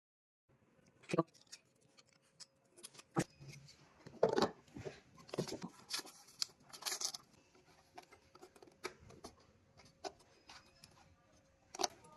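Handling sounds of a thermal-transfer label printer as a roll of label paper is loaded: irregular sharp plastic clicks and short rustles and scrapes, a second or so apart, over a faint steady hum.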